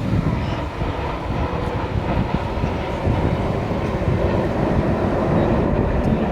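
Jet noise from BAE Hawk T1 jets flying overhead in formation, their Rolls-Royce Adour turbofans making a steady rushing sound that grows a little louder about three seconds in.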